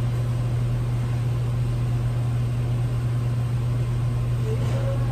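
Steady low mechanical hum with an even hiss over it, unchanging throughout: the background drone of a commercial kitchen.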